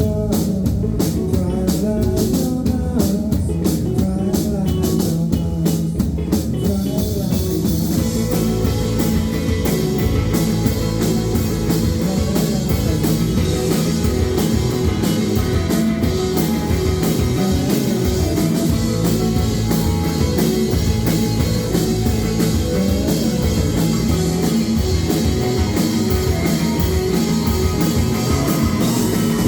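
A rock band playing: drum kit and guitar in a steady groove. About seven seconds in, the sound fills out with more cymbal and high-end wash.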